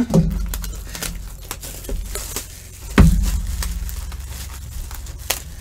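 A cardboard box of trading-card packs being handled and opened on a table: scattered clicks, taps and rustling, with two heavy thumps about three seconds apart.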